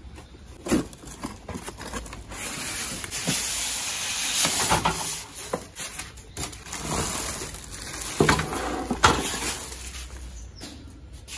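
An electric barbecue grill being unpacked: a cardboard box, a polystyrene packing sheet and plastic wrapping handled and rustling, with a few sharp knocks.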